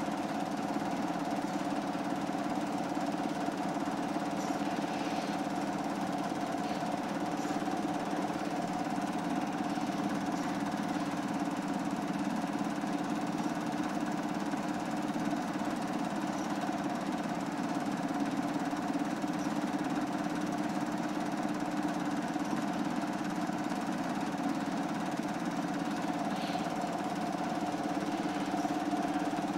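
Steady hum of a motor running at an even, unchanging pitch.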